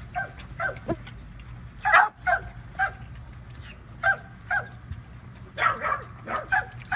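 A dog barking in short, sharp, high barks, about a dozen in uneven clusters, the loudest about two seconds in.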